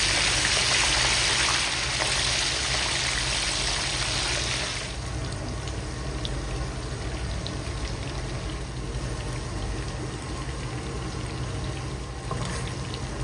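Kubbeh deep-frying in hot oil: a steady sizzling hiss, loudest for the first five seconds or so and then quieter, with a few faint pops of spitting oil.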